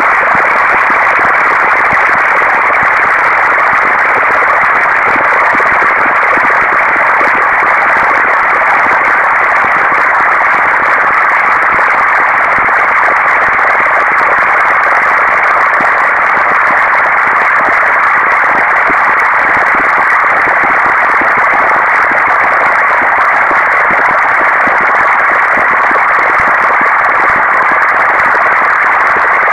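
Computer-generated procedural sound driven by a p5.js pixel-sorting algorithm: a loud, steady, grainy static-like noise. It sits in the middle range, with no low end and nothing above the upper mids.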